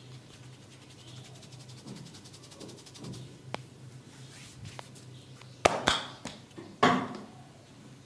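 Hands-on massage sounds: soft rubbing and faint quick ticking over a steady low hum. A little past halfway come two loud sharp impacts in quick succession on the body, and a third about a second later.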